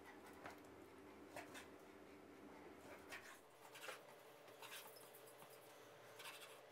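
Faint strokes of a chef's knife slicing raw pork neck into strips on a wooden cutting board, about six short cuts spaced irregularly roughly a second apart.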